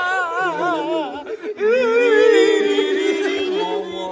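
Singing: a high voice holds long, wavering notes with wide vibrato in two phrases, over a low steady drone note that steps up slightly near the end.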